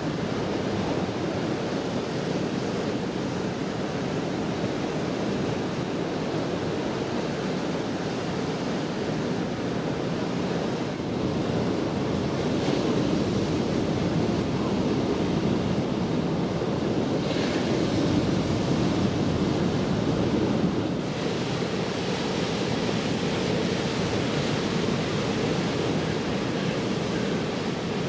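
Sea surf breaking and washing over a rocky boulder shore, a steady rushing that swells a little louder through the middle.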